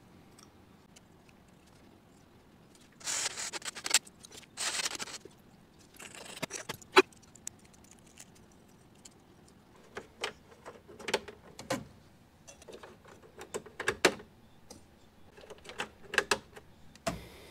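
Small plastic push-button switches and their wire connectors being handled and fitted, giving scattered sharp clicks and taps, with two short rustling bursts about three and five seconds in.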